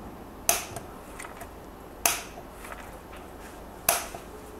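Side cutters snipping off the excess leads of freshly soldered LEDs on a circuit board: three sharp snaps, roughly one and a half to two seconds apart.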